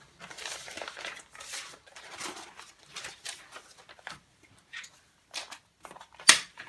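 Construction-paper pages on a clipboard rustling and crinkling as they are flipped over one by one, with a single sharp click near the end.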